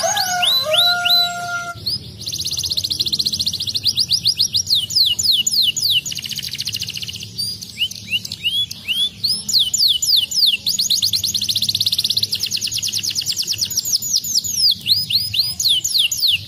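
Domestic canary singing: fast rolling trills broken by runs of quick down-slurred whistled notes, continuous and high-pitched.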